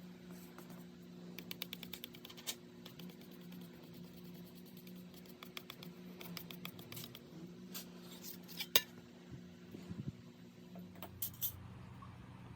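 Light metallic clicks and taps of small metal tools and parts on a workbench, in quick runs of ticks and scattered single clinks, with one sharper click about two thirds of the way through. A steady low hum runs underneath.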